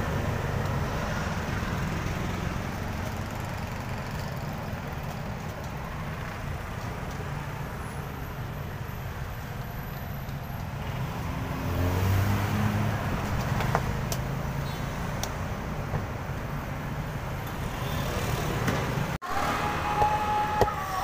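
Steady street traffic rumble, swelling as a vehicle goes by about twelve seconds in, with a few light clicks from a knife shaving the husk of a young coconut.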